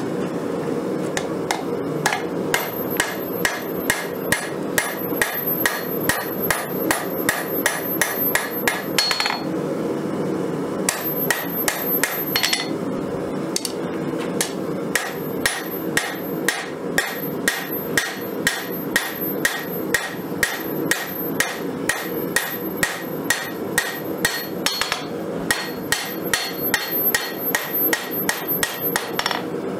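Hand hammer striking a red-hot steel wakizashi blade, forged from a Nicholson file, on an anvil: steady blows about two a second with a bright metallic ring, pausing briefly twice, over a steady background rush.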